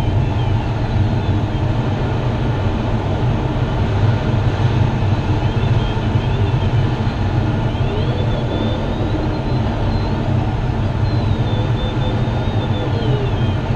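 Steady rush of airflow around the cockpit of a Grob 102 glider in flight. A faint thin tone slides up and down in pitch at times, most clearly in the second half.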